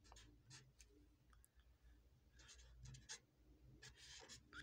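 Faint scratching of a felt-tip marker writing numbers on paper, in short separate strokes with brief pauses between them.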